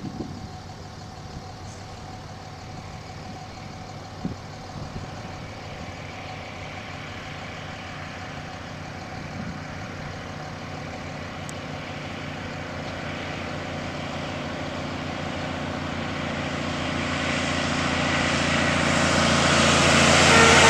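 Heavy-haul diesel semi truck pulling a loaded lowboy trailer as it comes along the highway. Its steady engine hum and tyre noise grow gradually louder and are loudest near the end as the rig draws close.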